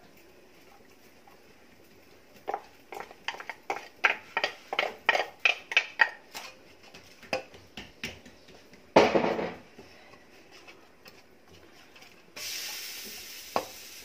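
Kitchenware knocks and clatter as grated onion is knocked out of a ceramic bowl into a pot of raw chicken and worked in with a wooden spoon: a run of light knocks at about two or three a second, then one louder clatter about nine seconds in. A steady hiss comes in near the end.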